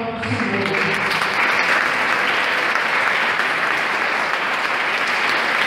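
Audience applauding: dense, steady clapping that swells in the first second as the singing stops.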